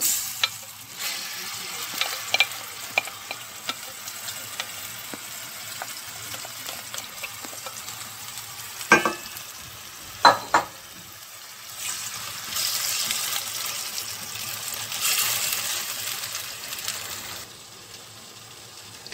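Marinated strips of meat shawarma sizzling in hot oil in a frying pan as they are tipped in and stirred with a wooden spoon. The sizzle swells louder for several seconds in the second half, and there are two sharp knocks about a second apart near the middle.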